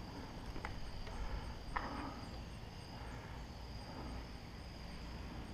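Crickets and other insects singing in a steady, high, even trill, with a faint regular ticking pulse above it. Two faint clicks sound, the clearer one about two seconds in.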